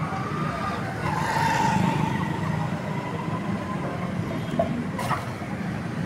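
Steady background traffic rumble, with a faint drawn-out tone starting about a second in and a single sharp click near the end.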